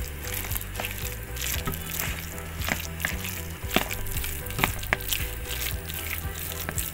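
Metal spoon stirring thick, wet gram-flour pakora batter in a bowl: wet squelching with irregular clicks and scrapes of the spoon against the bowl.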